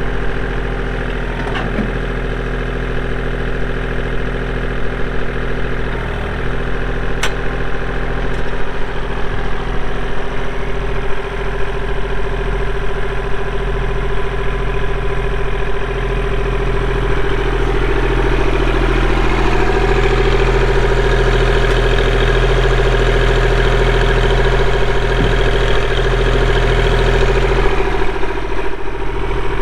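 Kubota L2501 tractor's diesel engine running steadily, its speed and loudness picking up a little about halfway through. A single sharp click sounds about seven seconds in.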